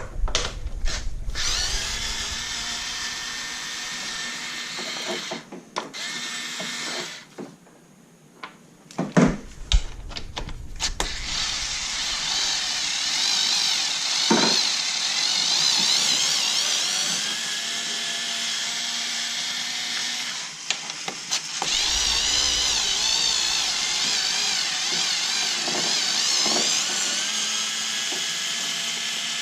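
Ryobi QuickTurn cordless electric screwdriver running in long stretches as it spins fasteners out of an ATV's front end, its motor whine wavering in pitch under load. It stops for a couple of seconds about a quarter of the way in, where a few sharp knocks are heard, and pauses briefly again about two-thirds through.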